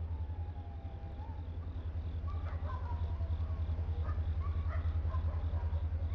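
Low, rapidly pulsing throb of a diesel locomotive engine, growing louder as the train approaches.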